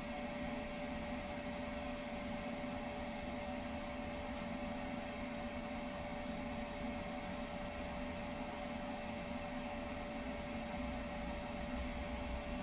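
Steady background hum and hiss of the truck cab, with one constant whining tone.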